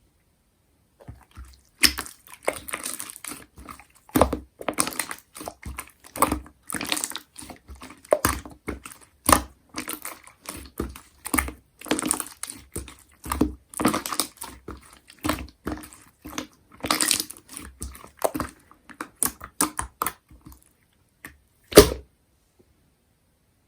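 Slime being squished and pressed by hand: an irregular stream of sticky clicks, crackles and little air pops, with a brief pause and one sharper pop near the end.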